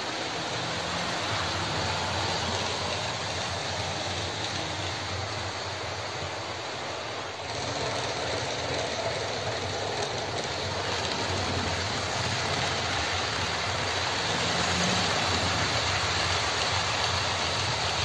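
Many OO gauge model trains running on the layout at once: a steady running noise of their small electric motors and wheels on the track.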